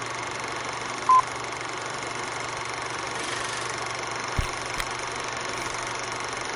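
Steady hiss with a faint low hum, broken by one short, loud, high beep about a second in and a dull low thump a little past the middle.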